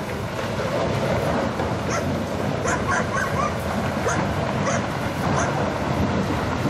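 Landslide on a hillside: rock and debris sliding down with a continuous loud rushing rumble. A dog barks several times from about two seconds in.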